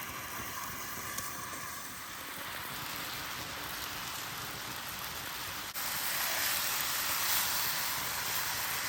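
Chicken sizzling as it cooks, a steady hiss that jumps louder and brighter about six seconds in.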